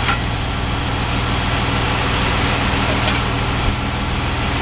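Engine of a truck-mounted knuckle-boom crane running at a steady speed, a low even hum, with a couple of faint clicks.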